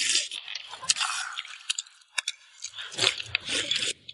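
A person slurping tomato-and-egg soup straight from a bowl, with a few light clinks of a metal ladle against the bowls.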